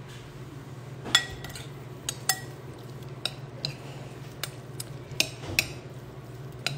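Metal spoon stirring raw shrimp in a ceramic bowl: about ten irregular clinks of metal on ceramic, some with a brief ring.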